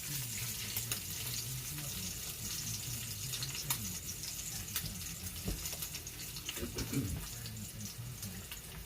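Bacon frying in a cast iron skillet: a steady sizzling hiss with many scattered small pops and crackles.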